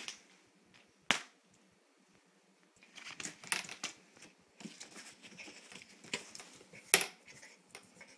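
A cat scrambling and pawing about in a fabric play tent, with scuffling and scratching, and two sharp knocks, about a second in and near the end.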